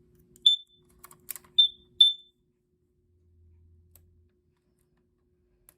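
Kidde Nighthawk KN-COPP-3 carbon monoxide alarm giving three short, high-pitched beeps as its backup battery goes in and it powers up, with a few sharp plastic clicks between the first and second beep.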